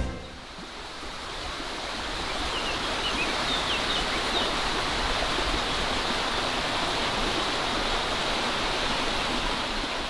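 Stream water running steadily, fading in over the first couple of seconds. A few faint, short bird chirps come a few seconds in.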